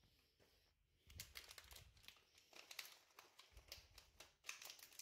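Small clear plastic bag of calcium tablets crinkling and rustling as a hand rummages in it. The crackling starts about a second in and goes on in irregular bursts.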